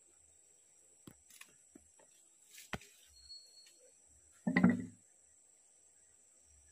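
Quiet outdoor ambience with a steady high-pitched insect drone, a few faint clicks and knocks, and one short low-pitched sound of about half a second a little past the middle.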